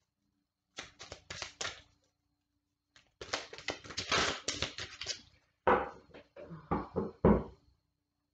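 A tarot oracle deck being shuffled by hand, in bursts of crisp card rustling and flicking, with a few heavier taps of the deck near the end.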